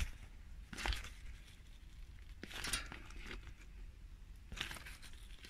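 Newspaper and plastic crinkling in three short bursts as they are gripped with pliers to pull the skin off a hanging eel.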